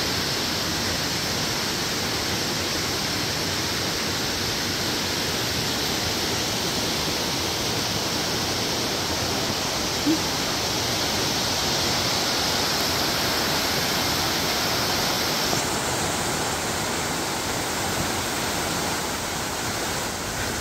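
Waterfall: a loud, steady rush of falling water plunging into its pool.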